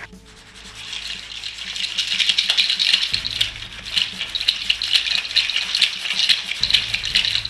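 Pencil scratching quickly back and forth across a sheet of paper in fast scribbling strokes. It begins softly and grows louder after about a second.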